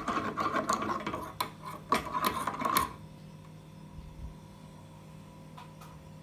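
Metal spoon stirring Turkish coffee in a small brass cezve: rapid scraping and clinking against the pot's inside, with a few sharper clinks, stopping about three seconds in.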